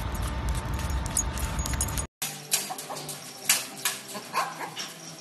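First a steady outdoor noise with a low rumble and a faint steady hum. About two seconds in it cuts off, and then come a puppy's clicking steps and knocks against a wire crate on a tiled floor, with a few short high-pitched animal squeaks.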